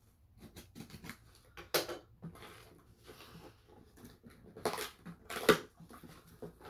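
Cardboard shipping box being opened by hand: the packing tape slit with a box cutter, then the flaps pulled apart, with cardboard crackling and rustling and a few short, sharp scrapes, the loudest about five and a half seconds in.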